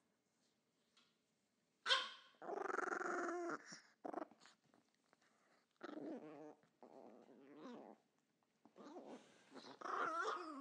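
Pet dogs snarling and growling in several separate bouts, opening with a sharp bark about two seconds in.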